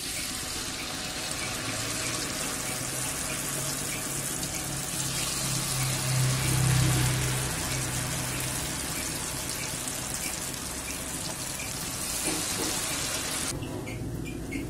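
Vegetable fritter batter sizzling vigorously in a wok of hot deep-frying oil, a dense, steady hiss with a low hum underneath. The hiss drops away sharply near the end.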